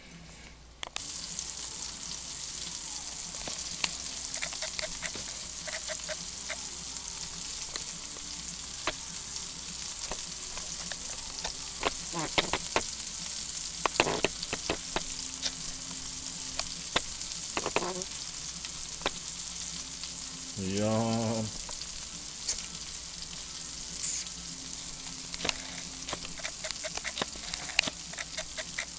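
Meatballs browning in hot grease in a skillet: a steady sizzle with frequent spitting pops, which comes up about a second in.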